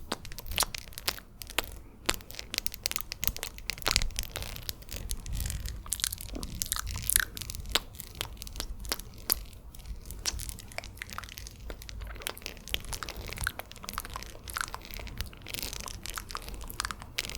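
Close-miked ASMR mouth sounds: rapid, irregular wet clicks and smacks.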